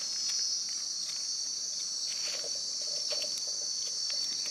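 Steady high-pitched chirring drone of forest insects, with a few faint small clicks and scrapes of a knife trimming a mushroom stem.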